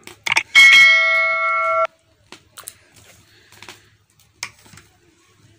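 A few quick clicks, then an electronic bell chime that holds steady for over a second and cuts off abruptly: the sound effect of a subscribe-and-bell-icon animation. After it, faint scrapes of a ladle stirring in a steel pot.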